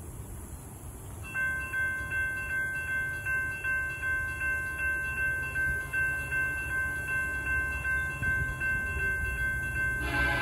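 Railroad crossing warning bell starts about a second in and rings steadily, about three strokes a second. Near the end the approaching KCS locomotive's Nathan K5LA five-chime air horn begins to sound.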